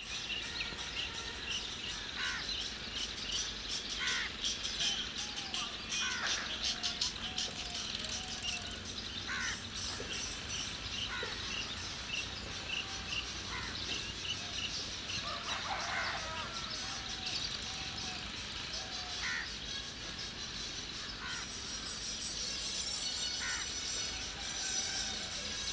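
Birds calling: short, sharp chirps repeated about every two seconds, with a few lower warbling notes between them, over a steady outdoor hiss.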